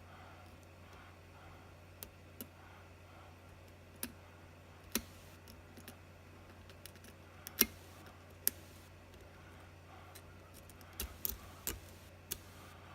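Lock pick clicking against the pins inside a Securit euro cylinder held in a false set under light tension: about ten small, sharp clicks at irregular intervals, bunched near the end, over a low steady hum.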